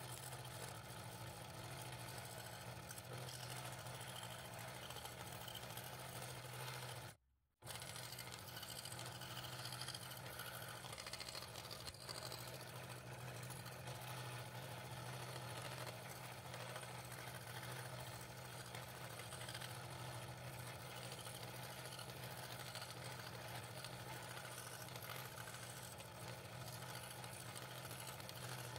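Scroll saw running steadily, its fine reciprocating blade cutting interior fretwork in thin wood, with a brief total drop-out about seven seconds in.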